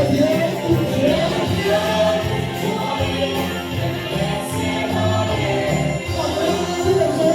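Music with several voices singing together over a low bass accompaniment.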